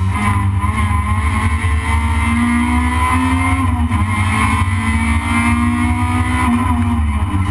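Toyota Corolla race car's engine heard from inside the cabin under hard acceleration, over a heavy low rumble. The revs climb for about three and a half seconds, drop, build again and fall near the end.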